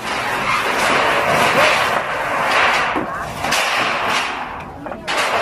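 Wooden shack being torn down by hand: continuous clatter and cracking of timber and roofing sheets as the frame is wrenched apart, with several sharp knocks.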